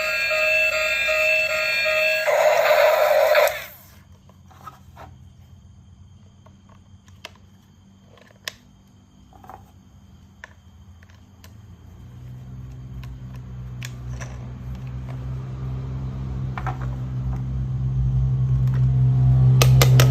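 A battery-powered toy train's electronic beeping tune, which cuts off about three and a half seconds in. Scattered light plastic clicks follow, then a low motor hum that grows steadily louder from about twelve seconds.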